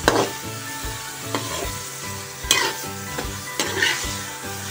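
A spoon stirring sliced onions into a tomato masala paste in a metal pot, knocking and scraping against the pot every second or so, over a steady light sizzle.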